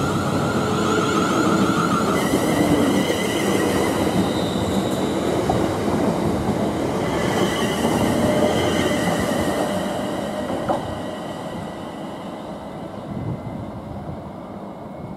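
Class 360 electric multiple unit pulling away, its traction motors whining and stepping up in pitch over the rumble of the wheels on the rails. The sound fades over the last few seconds as the train leaves.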